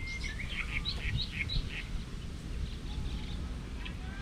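Small birds chirping: a quick run of short, high chirps in the first couple of seconds, then a few fainter ones, over a steady low outdoor rumble.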